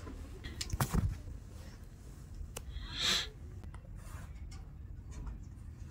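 Cotton cloth of kurti garments rustling as it is handled and turned over, with a soft thump about a second in and a short, sharper swish of fabric about three seconds in.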